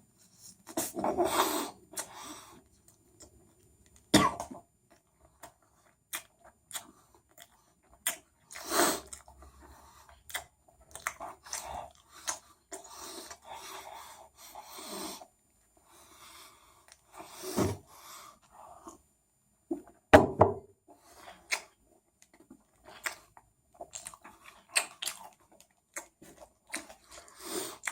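A person eating a chicken sandwich as fast as he can, close to the microphone: chewing and mouth noises in irregular short bursts, broken by several louder coughs.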